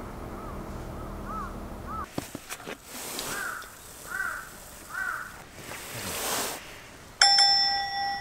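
A bird calls repeatedly in a quick series, then a plastic water bottle clicks as it is handled for drinking while a crow caws three times. About seven seconds in, a loud ringing comedic sound effect comes in suddenly.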